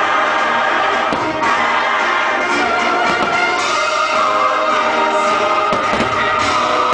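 A choir singing with an orchestra: continuous, loud choral and orchestral music.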